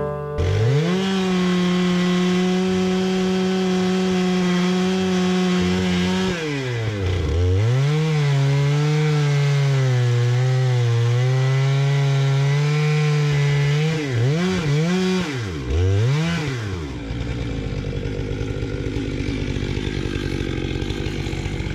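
Stihl MS 461 two-stroke chainsaw on an Alaskan chainsaw mill revving to full throttle, then dropping in pitch and holding lower under load as the chain cuts through the log. Near the end of the cut the revs dip and rise several times, then the saw falls back to idle.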